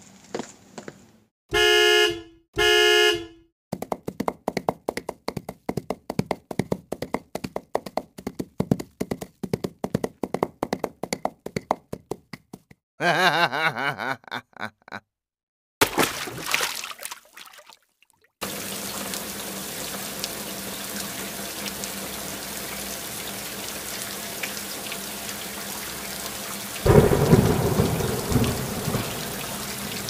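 A run of sound effects: two short tones, then quick footsteps at about four steps a second, a warbling tone, a few plops, and from about two-thirds of the way in, steady heavy rain with a louder low rumble near the end.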